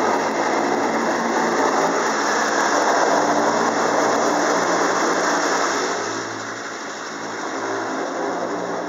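Automatic car wash water jets spraying and pelting the car's windows and body, heard from inside the car, over a steady low hum. The spray eases a little about six seconds in.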